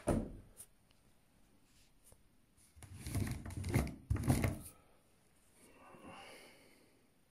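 A knock at the start, then about two seconds of rubbing and scraping handling noise from about three seconds in, as the camera is brought down against the metal body-loading shelf.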